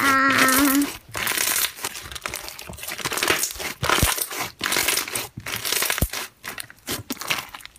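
White fluffy slime being squeezed and pressed between the hands, crackling and popping with many small clicks.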